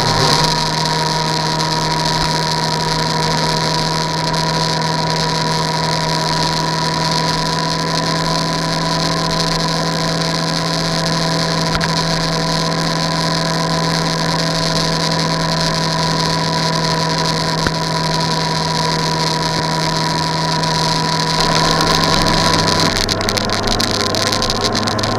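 An engine running with a steady drone and hiss; its low note shifts lower about 22 seconds in.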